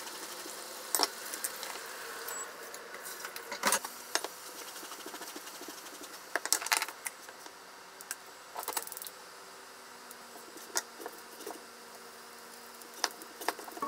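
Kitchen knife cutting eggplant on a mango-wood cutting board: single sharp knocks of the blade meeting the board, spaced irregularly one to a few seconds apart, with quieter handling sounds between.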